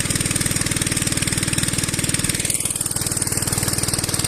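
Engine of a pump set draining a pond, running steadily with a rapid, even knocking beat.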